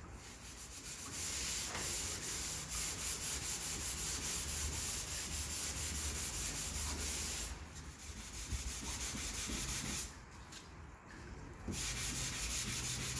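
Sandpaper sanding cured body filler on a car's body panel: a steady rasping rub of quick back-and-forth strokes that falters once and stops for nearly two seconds before starting again.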